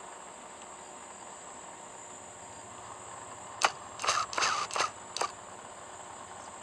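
Camera handling noise: one sharp click about halfway through, then a few short rustling bumps over the next second and a half, over a steady background hiss with a faint high whine.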